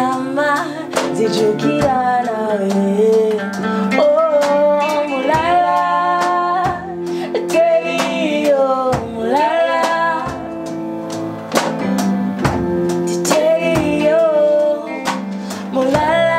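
A woman singing a song with long held notes, backed by a small live band of acoustic guitar, keyboard and drum kit.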